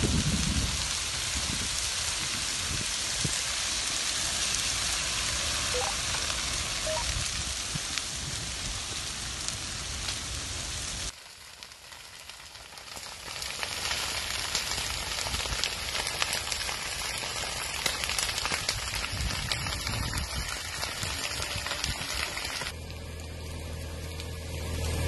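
Dry grass and brush burning, a steady dense crackle of small pops, with a sudden cut about eleven seconds in. Near the end a steady low engine hum comes in.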